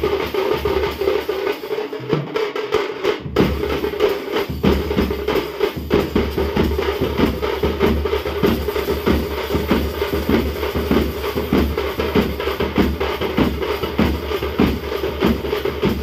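A group of drummers beating large strap-hung drums with sticks in a fast, steady, dense rhythm.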